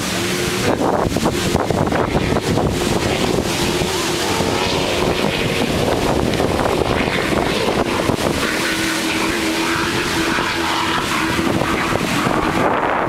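Racing powerboat engines droning out on the water, a steady pitch that fades and comes back stronger about two thirds through as boats pass, with wind buffeting the microphone.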